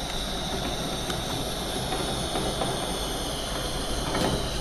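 Steady hiss and faint crackle of soldering on a copper seam: flux and 50/50 solder sizzling under the hot iron.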